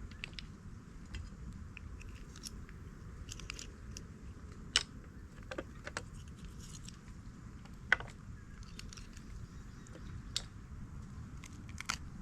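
Scattered clicks and small scrapes of freshwater mussels and their shells being handled and cleaned, over a low steady background rumble; two sharper clicks stand out, about five and eight seconds in.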